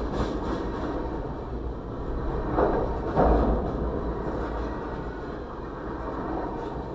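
Freight train of tank cars rolling past close by: a steady rumble of wheels on the rails, with two louder clunks about two and a half and three seconds in, heard from inside a car.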